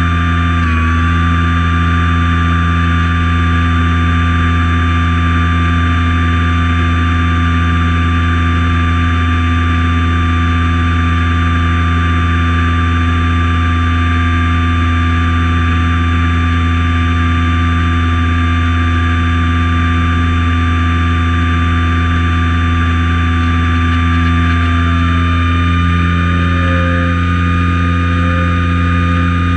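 Light high-wing plane's piston engine and propeller droning steadily in flight, with air rushing past. Near the end one tone in the drone slides a little lower.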